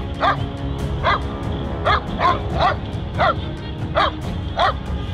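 A dog barking repeatedly at a sea lion: about eight short, sharp barks at irregular intervals.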